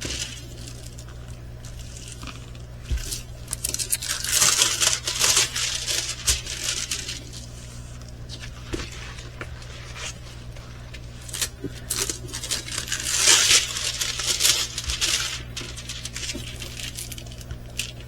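Crinkling and rustling of a rolled diamond painting canvas and its plastic film cover being unrolled by hand, in irregular bursts with a few light clicks, the loudest about two-thirds of the way through. A low steady hum runs underneath.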